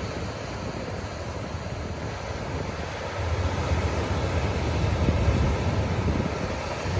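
Ocean surf washing onto a beach, a steady wash of noise with wind rumbling on the microphone; the low roar swells about three seconds in as a wave breaks.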